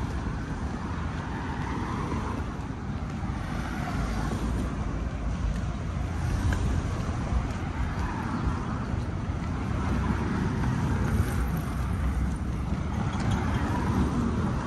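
Road traffic on a city street: a steady low rumble with the noise of passing vehicles swelling and fading every few seconds.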